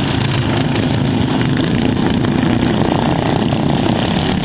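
Racing lawn mower engines running loud and steady.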